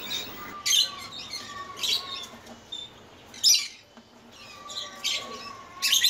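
Caged rainbow lorikeets calling: short, shrill, high-pitched screeches, about five of them, spaced irregularly a second or so apart.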